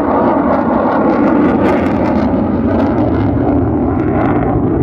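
Loud, steady jet noise from a Boeing F/A-18 Super Hornet's twin General Electric F414 turbofans as the fighter flies its air show demonstration.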